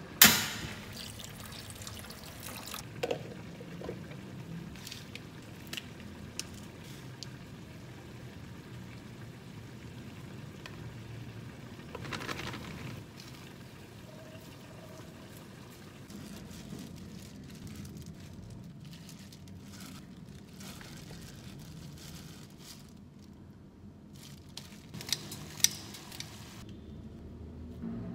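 Soy sauce poured over pork back ribs in a hot frying pan: a sudden loud sizzle at the start that dies away over about a second. Later come scattered light clicks and taps, and a softer scraping patch about twelve seconds in, from a wooden spoon mixing rice in a bowl.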